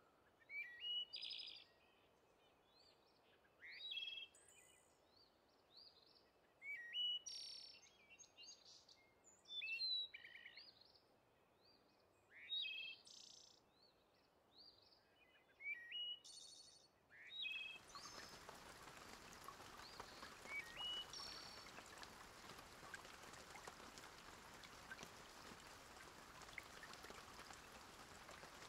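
Small birds chirping and singing in short, high phrases every two to three seconds. About eighteen seconds in, a steady hiss sets in and continues, with a few faint chirps over it.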